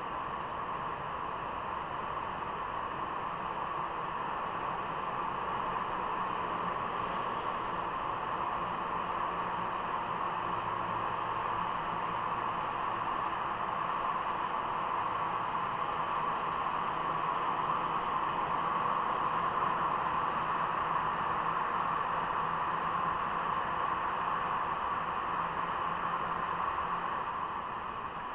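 Steady rushing noise of riding through a road tunnel, picked up by a small action camera: wind and road noise. It swells a little in the middle and eases near the end.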